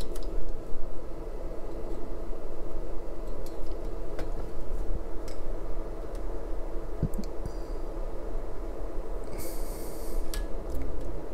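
Steady background hum, with a few light clicks and taps of multimeter test probes touching tube-socket pins and the metal chassis. A brief scratchy rustle comes about nine seconds in.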